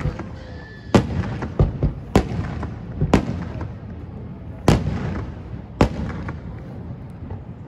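Aerial firework shells bursting: a string of about eight sharp booms, some in quick pairs, each trailing off in an echo. The last burst comes about six seconds in, then the sound dies down.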